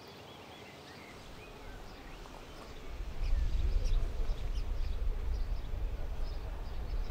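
Outdoor ambience with birds chirping, then a loud, low rumble that starts about three seconds in.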